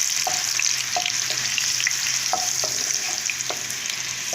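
Carrot pieces frying in hot oil in a pan: a steady sizzling hiss with scattered small pops and clicks.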